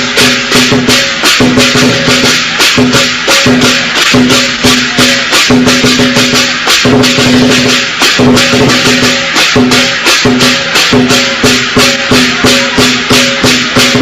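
Percussion-led music: a fast, even beat of rattling strokes, about four a second, over held pitched notes that change every second or so.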